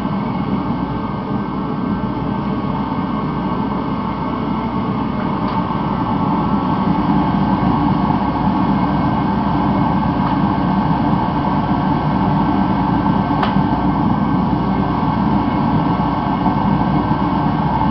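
Mr. Heater contractor-series forced-air torpedo heater running at full burn: a steady rush of blower air and burner with a motor hum, its air compressor pumping at about 8 psi. It grows slightly louder partway through, with one faint click later on.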